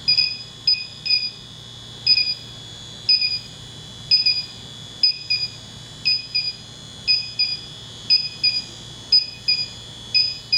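Detect Mate electronic refrigerant leak detector sniffing a coil for R-410A. It gives short, high, two-tone beeps about twice a second, often in close pairs. The tech concludes right after that it can no longer pick up the leak.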